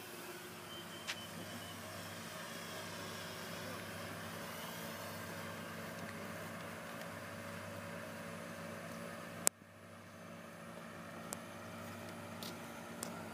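Radio-controlled Freewing Mosquito model plane flying past, its twin electric motors and propellers whining with a pitch that wavers as it moves, over a steady low hum. A sharp click about nine and a half seconds in.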